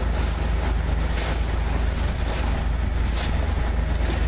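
A boat's engine hums steadily and low while the boat is under way, with water rushing past and wind buffeting the microphone.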